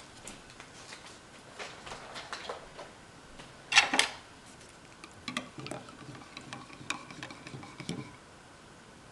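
Wooden stir stick clicking and tapping against a ceramic mug while instant coffee is stirred, a scatter of light taps over a few seconds, after one brief louder knock or rustle about four seconds in.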